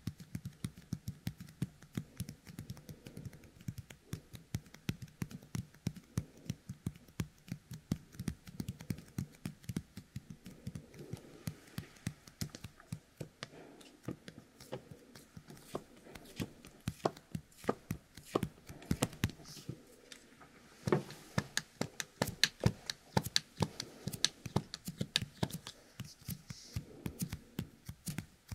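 Fingers coated with the sticky 'kusuri' of a yōkai kemuri toy being pressed together and pulled apart close to a binaural dummy-head microphone: a dense, uneven stream of small sticky clicks and crackles. It grows louder and busier about three quarters of the way in.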